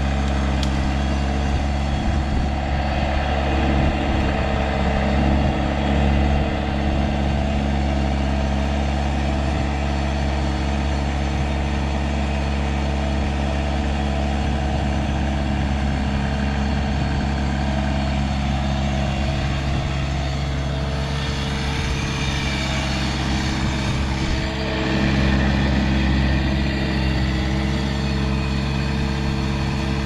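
Vermeer 725 mini skid steer's engine running steadily, with a couple of brief swells in level.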